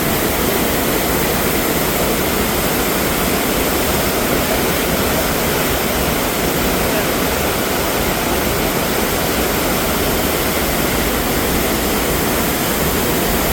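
Steady, loud rush of falling water, as from a waterfall.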